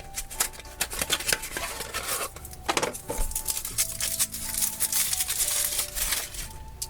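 Foil wrapper of a chocolate surprise egg crinkling and tearing as it is peeled off by hand, a rapid irregular crackle, over faint background music.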